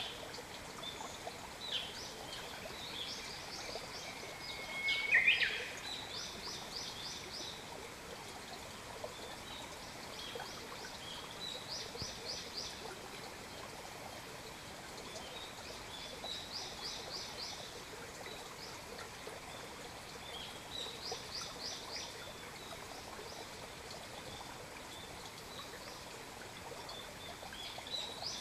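Wild birds singing: a short phrase of quick high notes repeated every four to five seconds, with one louder call, a held whistle with a flourish, about five seconds in. A steady hiss lies underneath.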